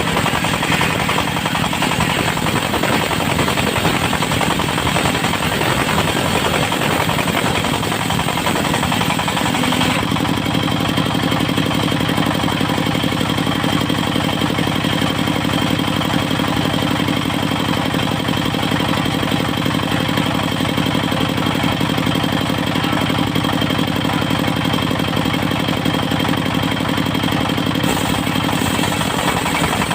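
Engine-driven circular sawmill running loud and steady, with a rough, throbbing engine note. About ten seconds in, the harsh, noisy part of the sound drops away and it settles into a smoother, even engine tone.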